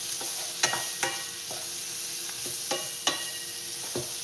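Sliced beef kielbasa and red pepper sizzling in a frying pan while a wooden spatula stirs them, scraping and knocking against the pan about six times.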